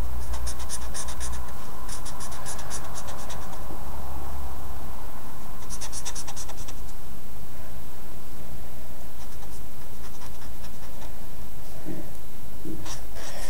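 Felt-tip pen scribbling on paper in quick back-and-forth colouring strokes. It comes in three main bursts of a second or so each in the first seven seconds, then fainter strokes later.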